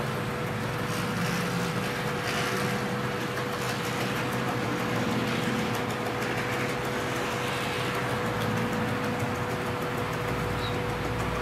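HO-scale model coal train of hopper wagons rolling along the layout track: a steady running noise with a constant hum and faint, rapid clicking of wheels over the rail.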